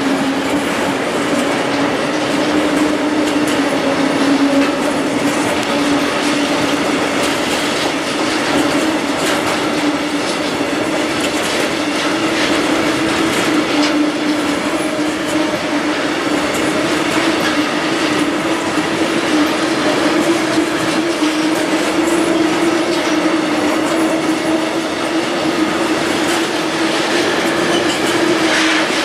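Freight train tank wagons rolling past: a loud steady rumble of steel wheels on the rails with faint rhythmic clicks, and a steady whining tone from the wheels that rises slightly in pitch.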